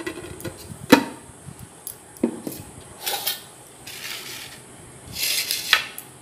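Kitchen dishes and a lid being handled: a few sharp knocks and clinks, the loudest about a second in, with short scraping, rubbing sounds in between.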